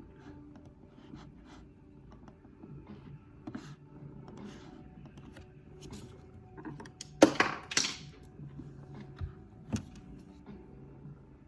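Computer keyboard typing and mouse clicks coming in scattered, uneven taps, with a louder burst of clatter about seven seconds in and a single sharper knock shortly after.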